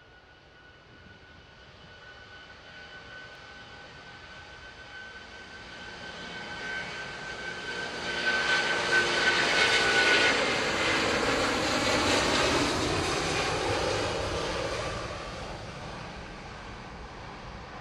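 Airbus A330-300's twin Rolls-Royce Trent 700 turbofans at takeoff thrust as the jet rolls down the runway: the engine noise and a high fan whine grow steadily louder as it approaches, peak as it passes about halfway through, then the pitch drops and the sound fades as it lifts off.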